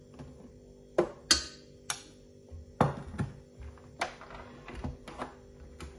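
A series of sharp metal clinks and knocks, about nine, as a metal spoon tips flour into a stainless-steel stand-mixer bowl and the mixer is handled, over a steady low hum.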